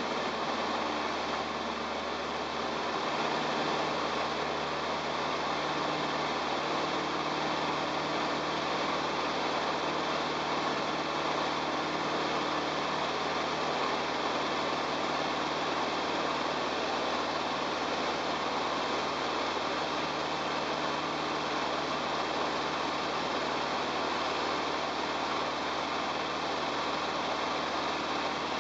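Jodel DR1050 light aircraft's four-cylinder piston engine and propeller running steadily under power, with air rushing past, through the take-off and climb. Heard from inside the cockpit, with an even engine drone beneath the noise.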